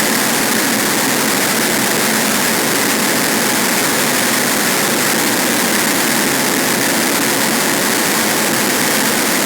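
Harsh noise wall: a loud, dense, unchanging wall of static-like electronic noise with little deep bass, cutting off abruptly at the end.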